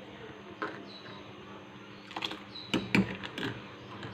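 A few sharp knocks and clicks of objects being handled over a faint steady hum: one about half a second in, one near two seconds, and three close together just before three seconds.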